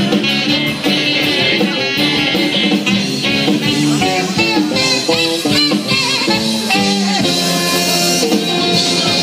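A live dance band plays amplified music through a PA, with electric guitar among the instruments. The music runs on without a break.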